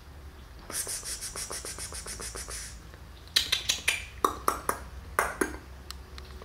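A fast, light rattle for about two seconds, then a string of about a dozen sharp clinks and taps from small hard objects.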